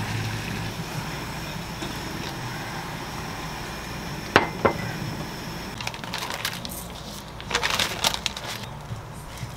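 A saucepan of buckwheat noodles at a rolling boil on a gas stove, making a steady hiss, with two sharp clicks about four seconds in. From about six seconds, crisp crackling and rustling as a sheet of dried laver (gim) is handled on a wooden cutting board.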